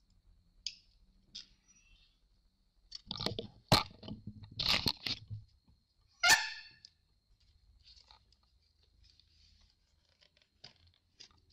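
Handling noise on a workbench as a laptop is shifted into position under a stereo microscope. A few light clicks come first, then a cluster of knocks and scrapes about three seconds in, and one sharp knock a little later.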